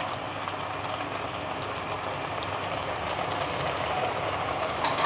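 Dried-fish batter fritters deep-frying in hot oil in a wok: a steady sizzling hiss with fine crackling from the bubbling oil.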